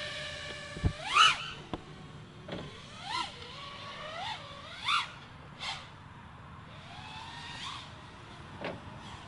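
FPV quadcopter's brushless motors whining, the pitch swooping up and falling back in a series of short throttle punches. A sharp knock comes just under a second in.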